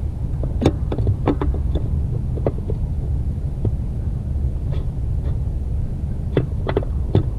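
Scattered clicks and knocks of a clutch master cylinder being worked back out through the firewall by hand, several in the first seconds and a few more near the end, over a steady low rumble.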